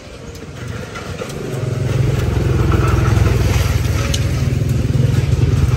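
A small engine running, growing louder about a second and a half in and then holding a steady, fast-pulsing low rumble.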